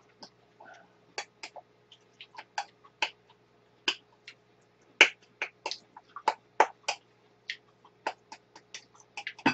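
Eating sounds of two people working through bowls of noodles and rice with chopsticks: irregular sharp clicks and smacks of chewing and of chopsticks against ceramic bowls, two or three a second.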